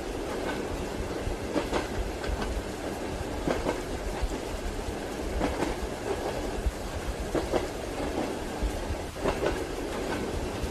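Train wheels clacking over rail joints, a short cluster of clacks about every two seconds, over the steady rumble and hiss of a moving railway carriage.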